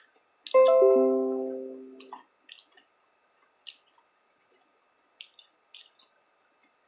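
A single strummed chord on a plucked string instrument, like a guitar or ukulele, rings out about half a second in and fades away over about a second and a half. A few faint clicks follow.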